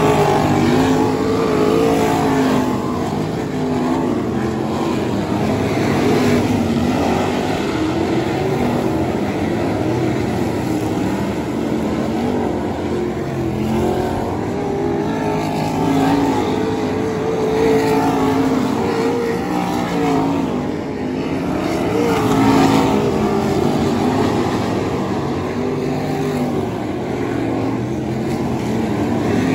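Several winged 360 sprint cars' V8 engines running laps together on a dirt oval. Their pitch rises and falls continuously as the cars go through the turns and down the straights.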